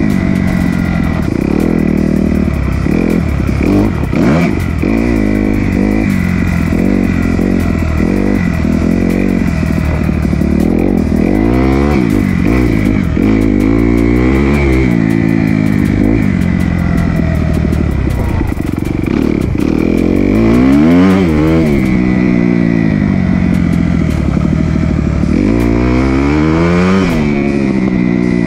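Kawasaki KX250 single-cylinder four-stroke dirt bike engine being ridden hard, revving up and dropping back again and again, its pitch rising and falling every few seconds.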